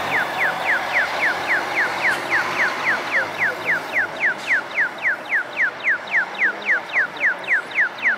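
Rapid electronic chirps, each a short falling tone, repeating evenly about four times a second, like an audible pedestrian-crossing signal. Under them, in the first second or so, the fading running noise of a Scania hybrid bus pulling away.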